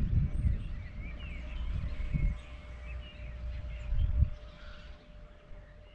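Outdoor village ambience: small birds chirping faintly, with intermittent low rumbles about two and four seconds in.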